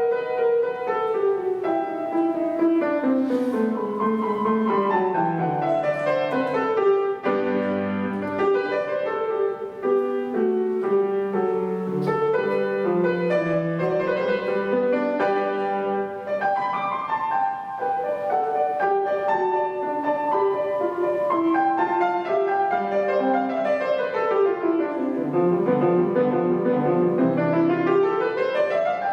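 Solo piano playing a classical piece in quick running passages, with scale runs sweeping down and back up.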